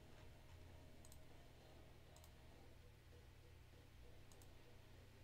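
Near silence with three faint computer mouse clicks, spaced a second or two apart, over a low steady hum.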